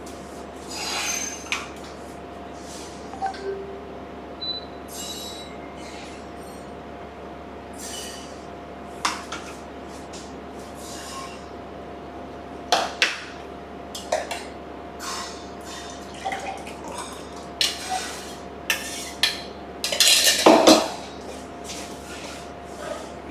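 Dishes, glasses and utensils clinking and knocking as they are handled on a kitchen counter, a dozen or so scattered knocks with a louder clatter near the end. A faint steady hum runs underneath.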